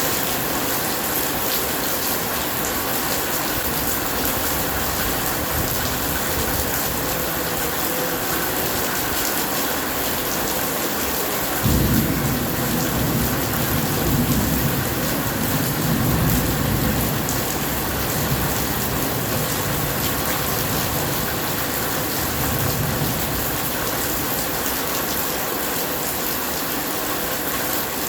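Steady heavy rain hissing, with a roll of thunder that cracks in suddenly partway through, rumbles on in low swells for about ten seconds and fades out.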